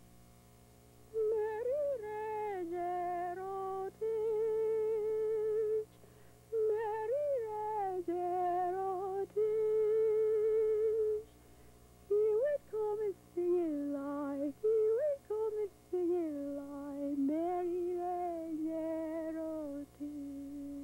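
A woman humming a slow, wavering melody on her own, in phrases of a few seconds with short pauses, starting about a second in.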